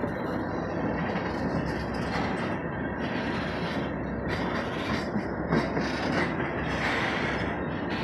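Freight train of gondola cars rolling past at steady speed with a continuous rumble and no clickety-clack over newly laid track. A higher hiss swells and fades several times.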